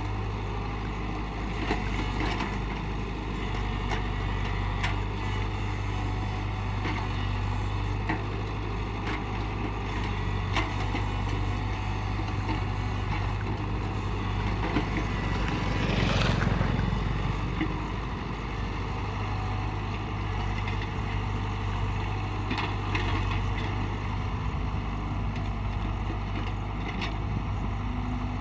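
Tata Hitachi 71 excavator's diesel engine running steadily under work, with scattered knocks and clatter from the arm and bucket. A louder rush of noise swells about halfway through.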